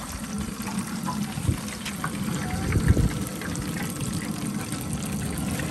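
Hot oil in an electric deep fryer sizzling and crackling with fried food, a steady hiss full of fine pops, over a steady low rumble.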